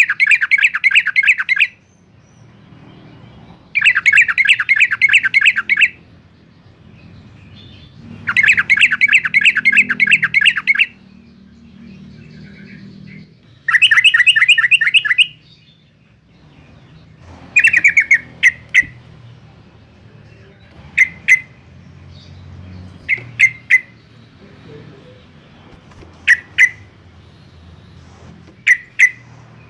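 Yellow-vented bulbul singing loudly: four rapid chattering bursts of about two seconds each in the first half, then short sharp call notes, singly or in pairs, every couple of seconds.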